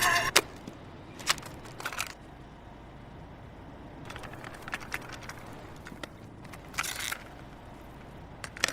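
A near-quiet gap between two songs: a faint low hiss with a few scattered clicks and crackles.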